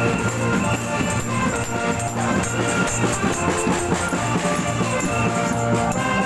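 Live music from a women's funeral procession band: held instrument tones over a steady drum beat.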